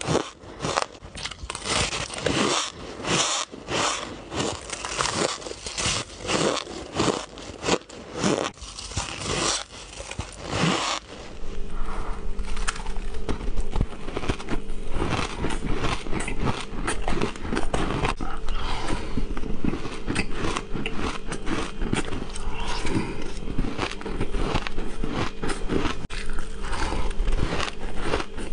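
Ice crunched and bitten close to the microphone: for about the first eleven seconds, separate crackling bites into a chunk of white, frosty ice, one every second or so. After a cut, denser crunching and chewing of shaved ice eaten by the spoonful, over a steady low hum.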